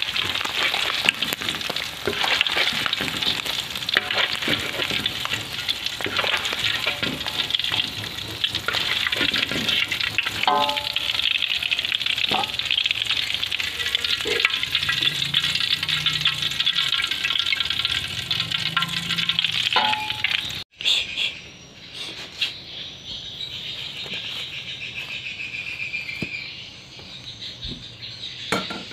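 Papuyu (climbing perch) frying in hot oil in a wok: a steady sizzle with many small crackling pops. It breaks off abruptly about twenty seconds in and then goes on more quietly.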